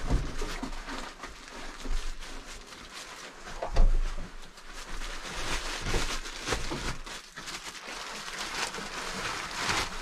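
A thin plastic bag crinkling and rustling as hands dig through it, with one thump a little under four seconds in.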